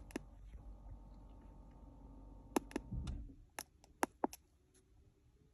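Scattered sharp clicks, a few at a time, over a faint low hum that stops about three seconds in.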